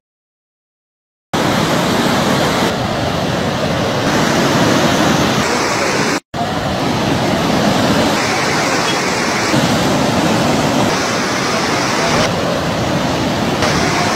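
Floodwater rushing in a steady, loud roar. It comes in after about a second of silence and drops out for an instant about six seconds in.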